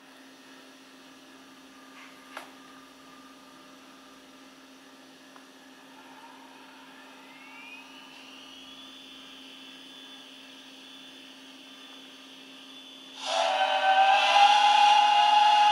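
Sound decoder of a Jouef H0 SNCF 141R steam locomotive model playing through its small speaker: a faint steady hum, a single click about two seconds in, then a whine that rises from about six seconds and levels off into a steady tone. Near the end a loud whistle of several tones at once starts suddenly and holds.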